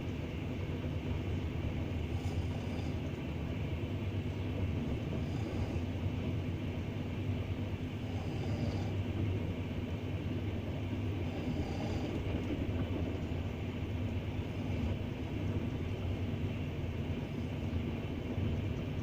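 Double-decker passenger train running along the track: a steady rumble of wheels on rails, with a brief hiss returning about every three seconds.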